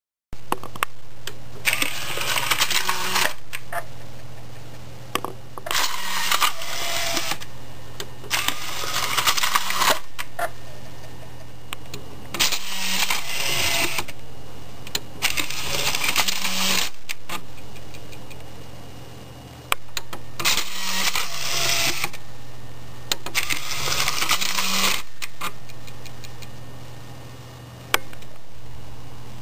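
Technics CD player's disc drive mechanism whirring and rattling in bursts of a second or two, every three to four seconds, over a steady low hum: the laser pickup trying again and again to read the disc.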